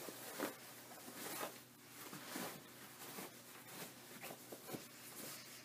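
A sewn fabric bag rustling and crumpling faintly as hands turn it inside out, with scattered small handling noises.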